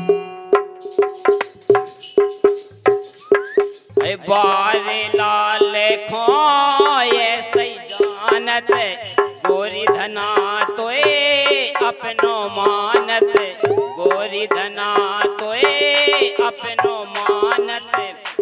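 Bundeli rai folk music: a steady held drone note with rattling hand percussion keeping an even beat. About four seconds in, a melody line with wavering pitch comes in over it.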